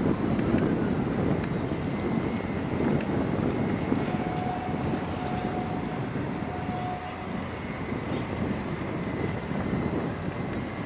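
Steady outdoor harbour rumble with no distinct event. A faint steady high tone, broken once, sounds for about three seconds in the middle.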